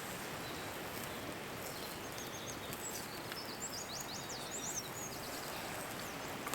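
A small songbird singing a run of quick high chirps and sliding notes for a few seconds, over a steady outdoor hiss.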